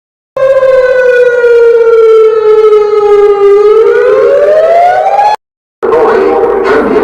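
Civil defence warning siren sounding loud with a buzzy, many-overtoned tone: its pitch sinks slowly for about three seconds, then climbs, and cuts off abruptly about five seconds in. A burst of loud, dense noise follows near the end.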